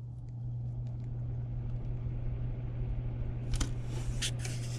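Electric fan motor starting on its lowest speed setting, spinning up with a steady low hum and gradually rising air noise. A few light clicks come near the end.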